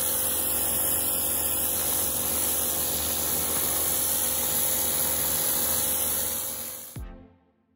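Pressure washer running and spraying: a steady, loud hiss over an even machine hum, fading out near the end.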